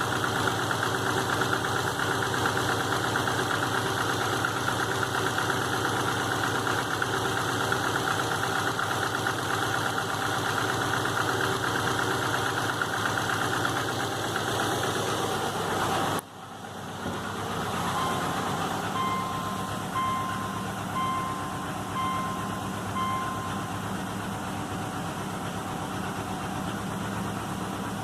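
2005 Subaru Legacy GT's turbocharged 2.5-litre flat-four engine idling with a knock, on an engine rebuilt on a refurbished block whose cause the owner has not found. After a sudden break about halfway, the engine keeps running while a short electronic beep sounds about once a second, five or six times.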